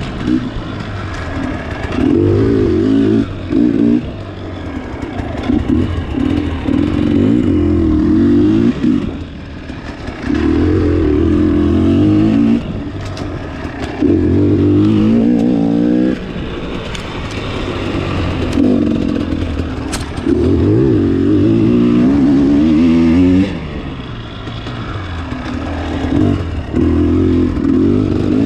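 Dirt bike engine being ridden hard on a trail, in loud bursts of throttle a few seconds long with drops between as the rider rolls off. The pitch rises during each pull.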